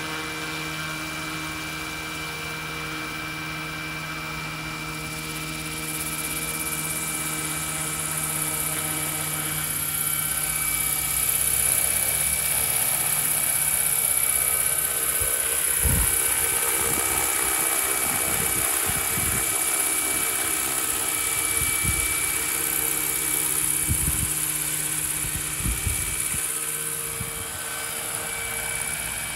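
Radio-controlled Bell 412 scale model helicopter (Roban Super Scale 800) spooling up and lifting off into a hover: the rotor and drive whine builds over the first ten seconds or so, then runs steadily. Irregular gusts buffet the microphone in the second half.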